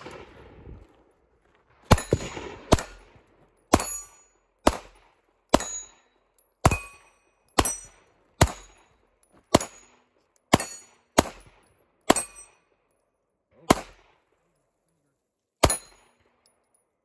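A string of about fifteen single gunshots, roughly one a second with slightly longer gaps near the end, each followed by the high ring of a struck steel target plate.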